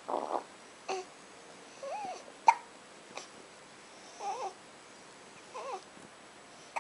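Newborn baby hiccuping: several short, sharp hiccups, the loudest about two and a half seconds in, with small coos and grunts between them.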